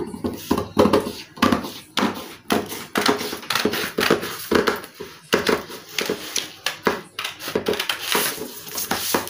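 Scissors cutting through layered sheet material, with repeated crisp snips about two a second.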